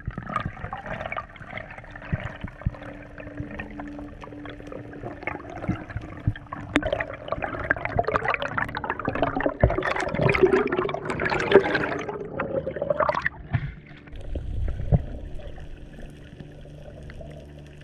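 Water gurgling and rushing around an underwater camera as a freediver moves, with scattered clicks. It swells louder for several seconds in the middle, then drops to a quieter steady wash.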